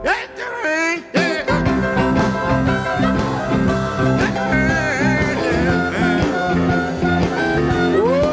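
Live electric blues band with piano, guitar, harmonica, bass and drums playing. The band drops out for about a second at the start, then comes back in full.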